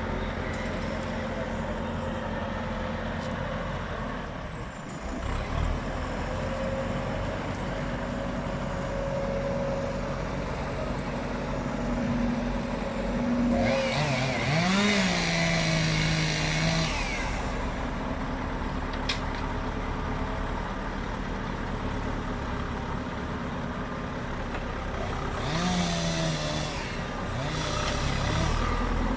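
Heavy diesel truck engine running steadily. It revs up with a rising pitch and a hiss about halfway through, and again near the end.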